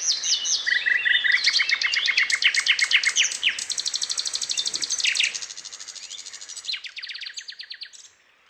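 Several songbirds chirping and singing fast trills of rapidly repeated notes. The birdsong is loud for about five seconds, then quieter trills carry on and fade out near the end.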